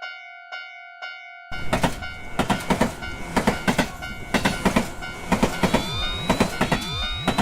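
Japanese railroad crossing bell clanging its kan-kan warning about twice a second. About a second and a half in, a much louder, dense clamour takes over: many overlapping crossing bells and train clatter, with tones sliding up and down in pitch.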